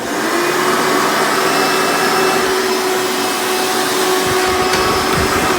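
Hoover Elite upright vacuum cleaner switched on, its motor starting suddenly and then running steadily with a constant whine.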